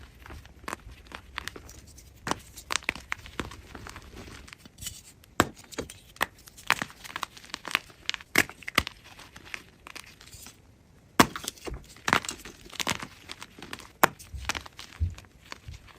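Gym chalk block (magnesium carbonate) being crushed: a dense, irregular run of crisp crunches and crackles as the chalk breaks apart, with a brief lull about ten seconds in.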